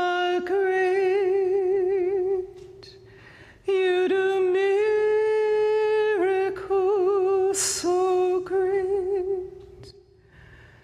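A woman singing a slow worship song unaccompanied, drawing out long held notes with vibrato in several phrases, with short pauses between them.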